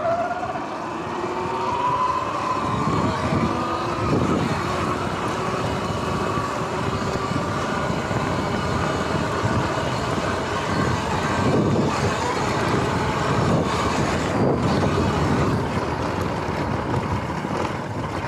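Sur-Ron X electric dirt bike's motor and drivetrain whining, rising in pitch as the bike pulls away over the first couple of seconds and then holding steady, under a constant rush of wind and tyre noise.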